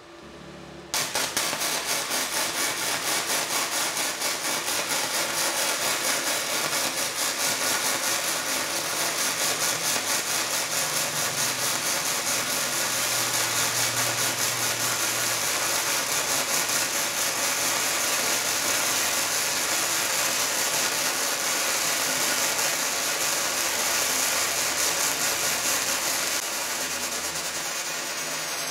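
Gasless flux-core MIG welding arc from a Daesung MIG-120SE, crackling and spattering continuously as a long bead is run. It strikes about a second in and holds steady.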